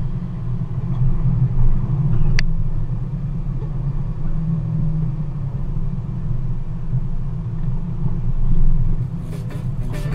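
Low, steady rumble of a Jeep Wrangler driving slowly over a rocky trail, picked up by a camera on its hood, with one sharp click about two seconds in. Music begins near the end.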